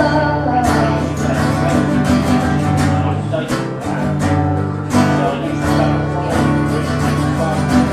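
Live acoustic guitar strummed in a steady rhythm under sustained low notes, playing a song.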